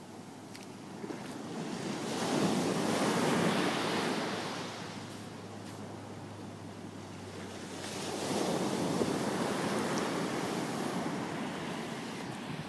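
Ocean surf breaking and washing in over a sandbar in two swells of rushing water: the first builds about two seconds in and fades, the second swells again about eight seconds in.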